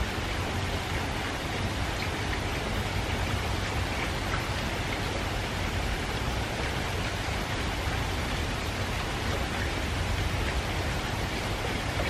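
Light rain falling steadily, an even hiss with a few faint drip ticks, over a low steady rumble.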